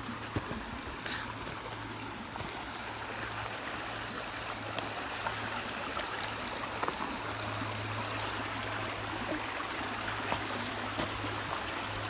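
Creek water running over rocks, a steady rushing with a few faint clicks and a low steady hum underneath.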